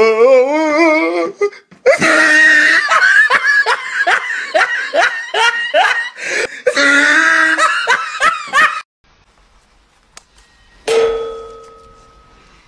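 A person laughing hard in long, pulsing belly laughs, which stop abruptly about nine seconds in. Near the end comes a single sudden hit that rings and fades over about a second and a half.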